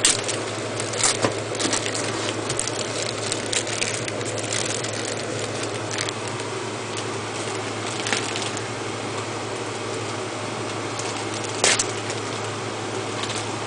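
Tape and wrapping being peeled and pulled off a hard drive: irregular crinkling and scattered sharp clicks, the loudest near the start and a little before the end, over a steady low hum.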